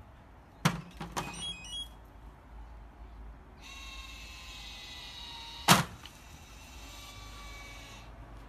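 Automatic dog ball launcher: a couple of sharp clicks as the ball is dropped in, then a steady high motor whine, and about two-thirds of the way through a loud thunk as it fires the ball out.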